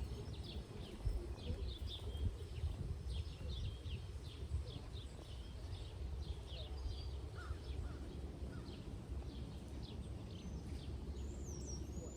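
Birds chirping repeatedly in short, high notes over a steady low rumble.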